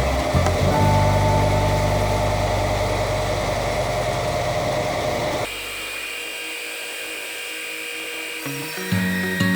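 Wood-Mizer LT15 Wide electric sawmill running, a steady motor and band-blade whine. It changes abruptly about five and a half seconds in to a quieter, higher sound.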